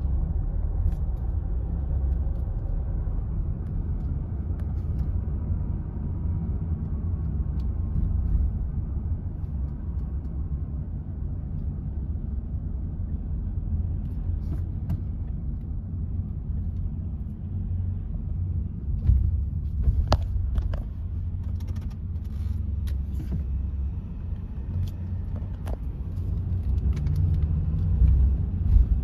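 Car driving slowly, heard from inside the cabin: a steady low rumble of road and engine noise, with a few brief clicks and knocks in the second half.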